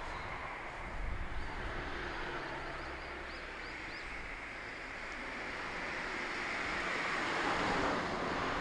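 Road traffic noise from passing cars, easing off and then swelling again near the end as another vehicle goes by. A bird chirps a quick run of short rising notes about three seconds in.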